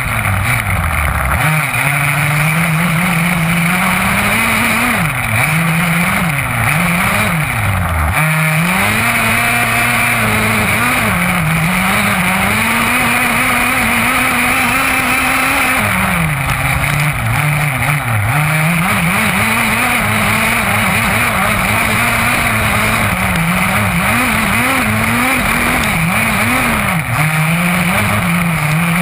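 Small two-stroke petrol engine of an HPI Baja 5B 1/5-scale RC buggy, heard from a camera mounted on the car, revving up and down over and over as it is driven hard on dirt.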